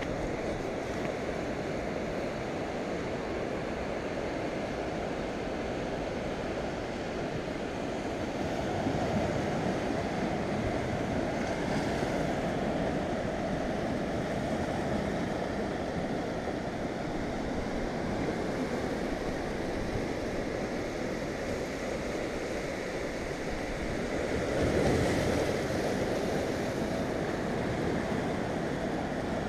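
Sea waves washing and breaking against a rock seawall, with surf in the background and wind on the microphone; the wash swells louder as a bigger wave breaks about 25 seconds in.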